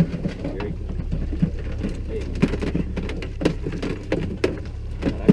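Wind rumbling on the microphone aboard a small boat, with irregular small knocks and splashy crackles, typical of water slapping against the hull.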